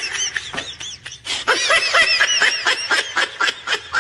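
High-pitched, rapid giggling laughter, a quick run of short squeaky chirps.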